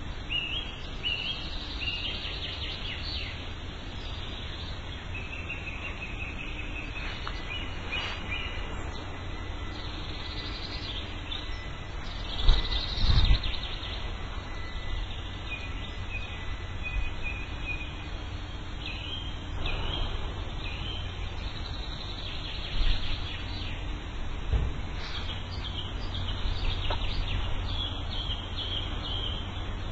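Several birds chirping and trilling in short phrases over a steady low rumble of background noise. A few low thumps come through, the loudest a pair about twelve to thirteen seconds in.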